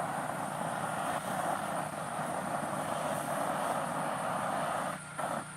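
Steady rushing noise with a thin, steady high-pitched tone over it; the noise drops out briefly twice near the end.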